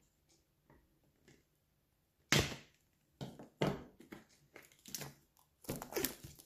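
Plastic wrapping being crinkled and pulled off a boxed kit: a few faint ticks, then a sharp rustle about two seconds in, followed by a run of irregular crinkling bursts.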